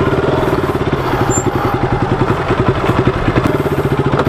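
KTM RC motorcycle's single-cylinder engine running at low revs near idle, a steady rapid train of exhaust pulses.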